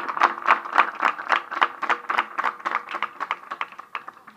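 A crowd clapping in a steady rhythm, about four claps a second, fading out near the end.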